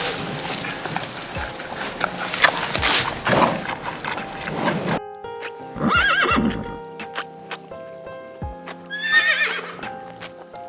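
A horse galloping, with a rush of hoofbeats for about the first five seconds. Two whinnies follow, about six and nine seconds in, each a wavering call that falls in pitch. Background music runs underneath.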